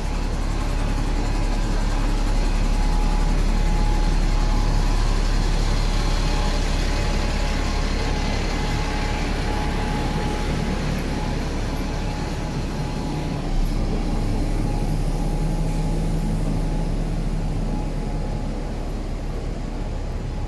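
Street traffic with a city bus running close by: a steady low rumble that lightens about two-thirds of the way in, where there is a single short knock.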